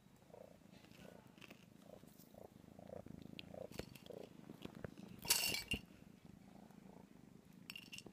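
A kitten purring close by, a low steady purr that pulses about twice a second. About five seconds in comes a brief loud rustle.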